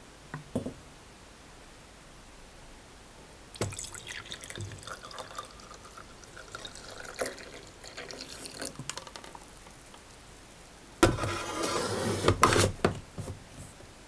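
Hot filter coffee poured from a stainless steel thermal carafe into a ceramic mug, splashing and filling for about five seconds. About eleven seconds in, a louder clatter of knocks as the carafe is set back onto the coffee machine's base.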